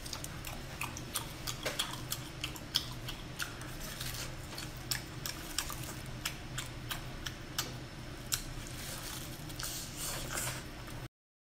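Close-up wet mouth sounds of eating sauce-coated octopus tentacles: irregular sticky clicks, lip smacks and squelches, a few a second, over a low steady hum. The sound cuts off suddenly just before the end.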